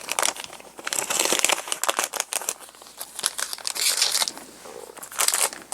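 Plastic packaging crinkling in irregular rustles as a handful of stamps is slid back into its packet, loudest about a second in and again near the end.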